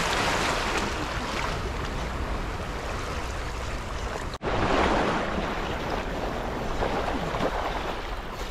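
Small sea waves washing and splashing over shoreline rocks, swelling and easing in a steady wash, with a brief cut-out about halfway through.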